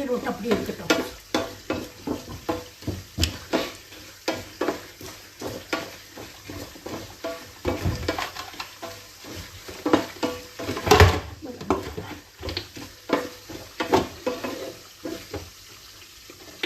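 Kitchen utensils knocking and scraping against a metal pan or jar: irregular short clinks, two or three a second, with one louder knock about 11 seconds in.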